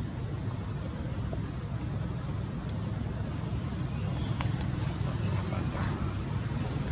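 A low, steady motor rumble, slowly growing louder toward the end, with insects trilling steadily high above it.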